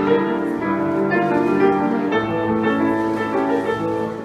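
Grand piano played: a slow melody over held chords, with a low bass note coming in about two seconds in.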